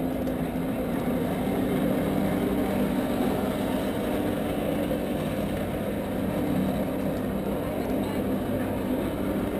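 Jet ski engine running at a steady pitch, as the personal watercraft that pumps water to a flyboard.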